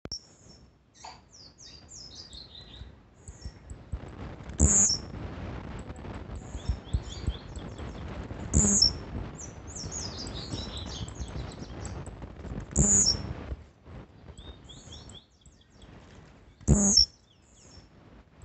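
Caged male blue-black grassquit (tiziu) singing its short, sharp song four times, about every four seconds. Quick, thin chirps come in between.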